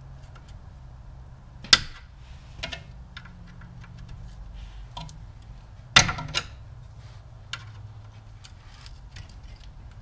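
Small hand tools clicking and scraping against the rear drum brake backing plate and the parking brake cable end while prying the cable out. Two sharp metallic clicks, about two seconds in and about six seconds in, are the loudest, with lighter ticks and clinks in between.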